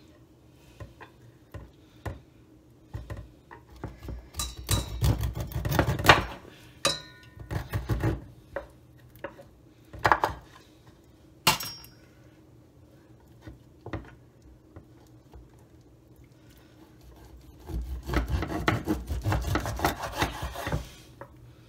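Kitchen knife cutting and scraping along the edges of a pomfret on a wooden cutting board: scattered knocks and taps, with longer stretches of scraping about four to eight seconds in and again near the end.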